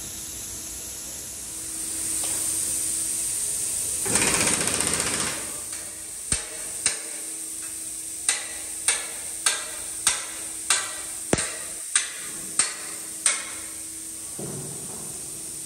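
A hammer striking steel about eleven times at an even pace of under two blows a second, each blow ringing briefly, after a short burst of hiss about four seconds in.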